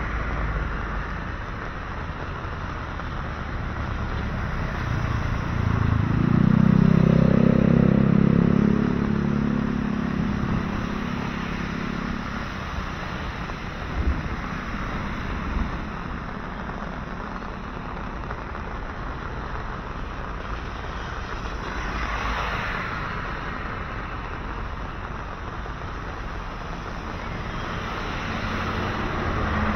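Road traffic passing on a rain-wet bridge, tyres hissing on the wet surface, with one vehicle's engine passing close and loud about six to eleven seconds in before fading.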